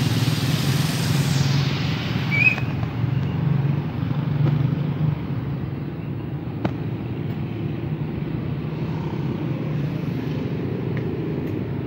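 Outdoor traffic sound: a steady low hum of car engines and road noise, with a short high chirp a little over two seconds in and a single click in the middle.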